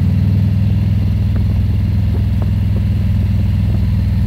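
Touring motorcycle engine running at low road speed, heard from the saddle as a steady, pulsing low rumble.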